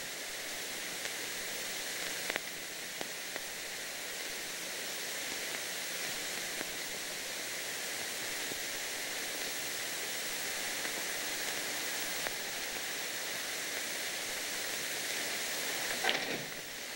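Steady hiss with no tone in it, the noise of an old film soundtrack, with a few faint clicks a couple of seconds in.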